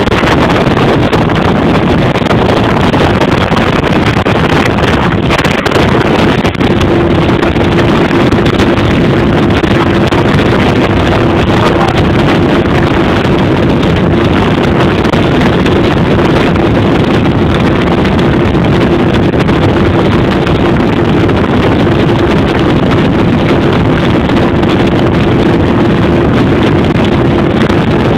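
Glastron motorboat running steadily at speed, its engine noise mixed with water rushing along the hull and heavy wind buffeting the microphone. A steady hum comes in about six seconds in and holds.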